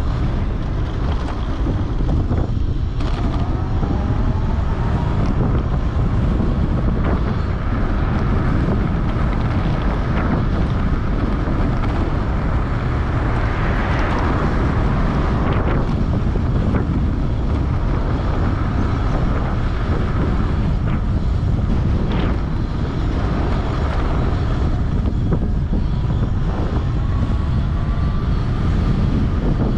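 Wind buffeting the microphone while riding a 3000 W electric bike at speed, with the motor's faint whine rising in pitch as it accelerates, a few seconds in and again near the end.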